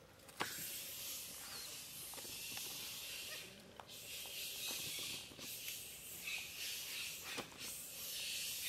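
A steady high hiss sets in sharply about half a second in and dips briefly a few times. Over it come scattered clicks and rustles of long-tailed macaques moving over dry leaf litter.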